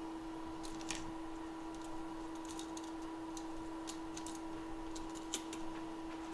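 Small, light clicks of metal tweezers handling a new USB-C charging port on a phone's circuit board, scattered and irregular with the sharpest just past five seconds in, over a steady electrical hum from the bench equipment.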